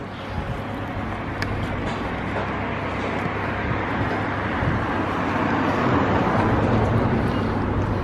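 Road traffic noise from a passing vehicle, building slowly to a peak about six seconds in and easing off, over a steady low hum.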